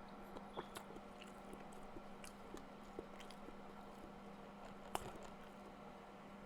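Faint close-up chewing and mouth sounds of someone eating shrimp, with small scattered clicks and smacks and one sharper click about five seconds in. A steady low hum runs underneath.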